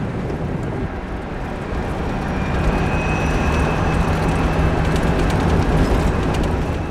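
Driving noise of an electric-converted 1960 MGA on the move: a steady rumble of road and wind noise with no engine sound. A faint high whine and a low hum come in about two seconds in.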